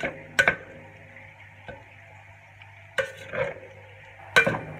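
A spatula scraping and clanking against a stainless steel pan as fried rice is stirred and tossed: several sharp clanks with a brief metallic ring at irregular intervals, the loudest near the start and near the end.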